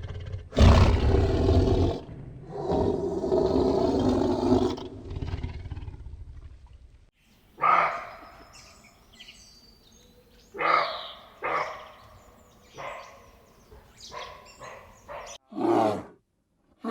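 An animal's loud, drawn-out growling roars, followed by a series of short separate calls about a second apart.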